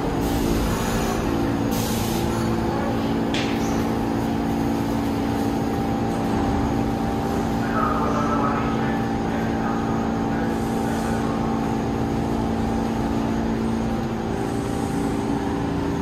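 New York City subway train at a station platform, giving a steady hum of several fixed pitches over mechanical noise, with a single sharp clank about three seconds in.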